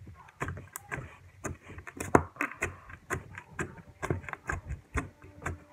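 Homemade 'table clicker' slime pressed and squeezed against a tabletop by fingers, giving off a quick, uneven run of sharp clicks, about three to four a second, as air pockets pop.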